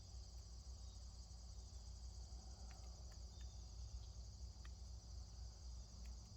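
Faint, steady chorus of crickets chirping in a continuous high trill, over a low rumble, with a few faint ticks.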